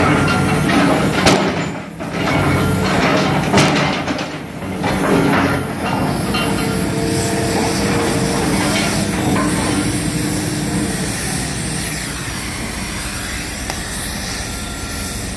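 Excavator engine running while concrete slabs crack and crash as it crushes them, with a few sharp impacts in the first five seconds. After that a steady hiss takes over, a cutting torch burning through rebar, with machinery running under it.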